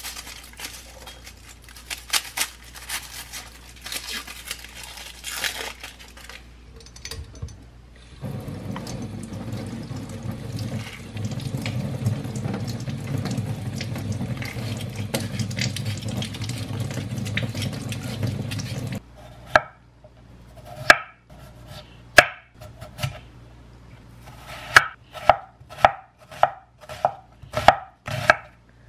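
A knife trims and peels an onion over a stainless steel sink, with crisp cuts and rustling skin. Then tap water runs steadily over hands washing a potato for about ten seconds and stops. After that, a knife slices onion on a wooden board in sharp, regular strokes, about two a second near the end.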